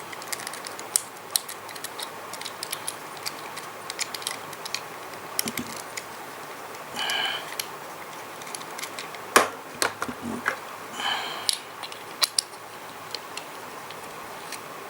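Camera gear being handled with the Ulanzi Falcam quick-release plate and mounts: scattered small clicks and taps, a louder click about nine seconds in, and two short rustling sounds around seven and eleven seconds in.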